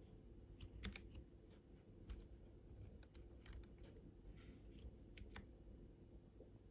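Faint, irregular key presses on a Keychron K7 low-profile keyboard with banana switches: about a dozen separate clicks scattered over a few seconds, not steady typing.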